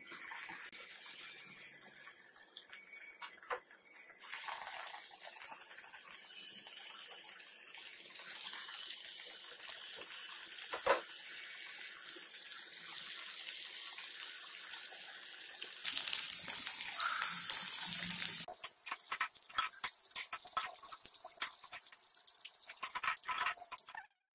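Batter-coated paneer pakodas deep-frying in hot oil in an aluminium kadai: a steady sizzle that grows louder as more pieces go in, with a short louder burst about two-thirds through. Near the end a wire skimmer turns the pakodas, adding scrapes and clicks against the pan, and the sound cuts off suddenly.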